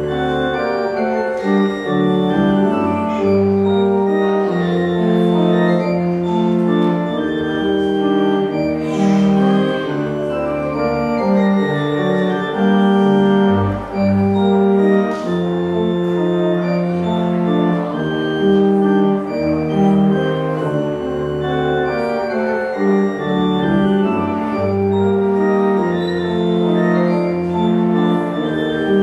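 Organ music: slow, sustained chords with held notes that change every second or two, without speech.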